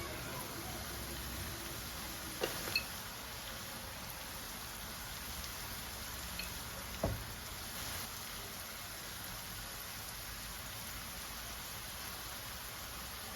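Steady soft hiss with a few light knocks, two close together about two and a half seconds in and one about seven seconds in.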